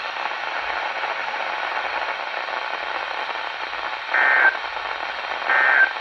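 Weather radio receiver hissing with static after the voice message ends, then two short, identical bursts of SAME digital data tones about four and five and a half seconds in. These are the end-of-message code that closes the flash flood warning.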